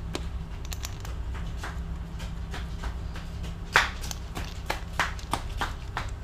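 Light clicks and taps of hands handling metal parts on a motorcycle engine during an oil change, with a sharper knock a little under four seconds in and a few quick taps about a second later, over a steady low hum.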